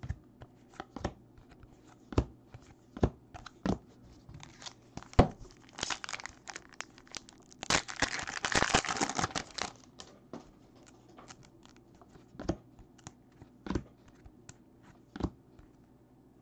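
A foil Upper Deck hockey card pack torn open and crinkled, a loud rustling lasting about two seconds near the middle. Around it come scattered sharp clicks and taps of cards being handled.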